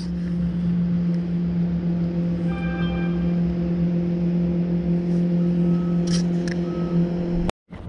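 Jet boat motor running steadily with a low, even hum, until it cuts off suddenly near the end.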